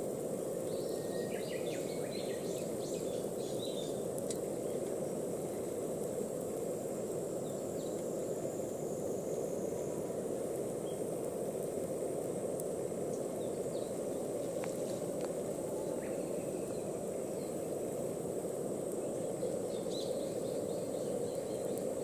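Steady outdoor background noise, a low even rumble, with an insect's thin high trill over it and a few faint bird chirps about one to four seconds in and again near the end.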